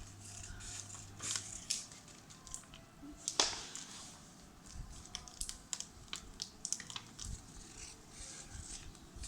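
Paper and tape being handled close by: scattered rustles, crinkles and small clicks, with one louder knock about three seconds in.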